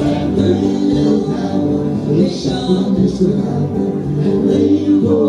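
Music with singing, at a steady loud level.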